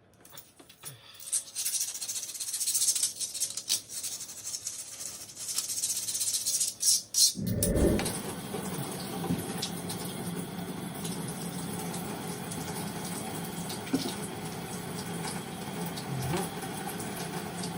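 Hissing, scratchy noise for roughly the first seven seconds, from cleaning work on the floor around a toilet flange. After a low thump, background music carries on for the rest.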